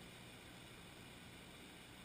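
Near silence: a faint, steady hiss with no distinct sounds in it.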